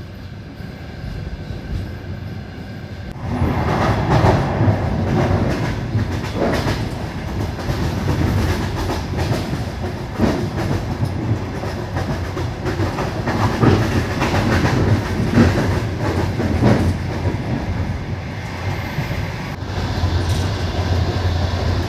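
Passenger train carriage running along the rails, with rumbling and the clatter of its wheels over rail joints. The noise gets markedly louder about three seconds in.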